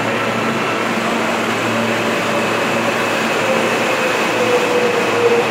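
MTA R160 subway train running along an underground station platform: a loud, steady rumble of wheels on rail with a faint, steady whine from its motors.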